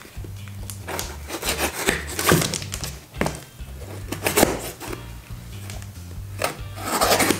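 Background music with a steady, stepping bass line, over a knife slitting the packing tape along a cardboard box: a series of short, sharp rasping cuts.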